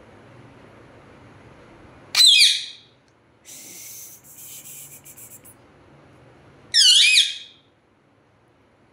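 Rose-ringed (Indian ringneck) parakeet giving two loud, shrill calls about four and a half seconds apart, each bending in pitch. A quieter rasping, hissing noise comes between them.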